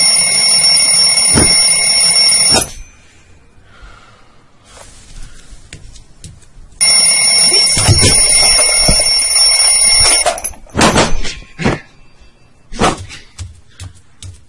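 Alarm clock bell ringing loudly, cut off abruptly about two and a half seconds in; after a pause it rings again for about three and a half seconds and is cut off again, followed by a few sharp knocks.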